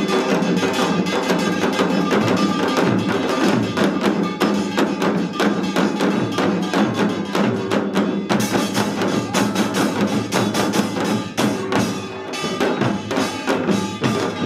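Samul nori ensemble playing Korean traditional percussion: janggu hourglass drums and buk barrel drums struck in a fast, dense rhythm under the steady ringing of small kkwaenggwari gongs.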